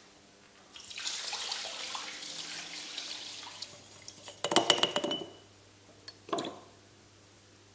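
Liquid poured from a glass bowl for about two and a half seconds. Then paint brushes rattle and knock against glass paint jars, with a run of clinks and a brief glassy ring about four and a half seconds in and another knock a little later.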